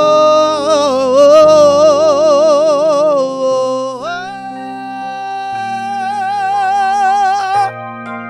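Worship song: a singer holds a long note with wide vibrato, then slides up to a higher held note about four seconds in, over sustained keyboard chords. The voice stops shortly before the end, leaving the chords.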